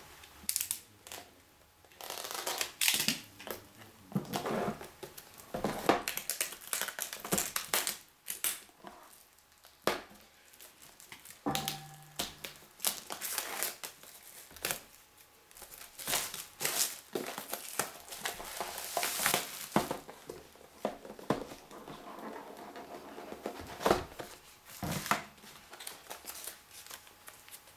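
Packaging of a tablet keyboard dock being unwrapped: irregular crinkling, rustling and tearing of the wrapping as it is handled and pulled off.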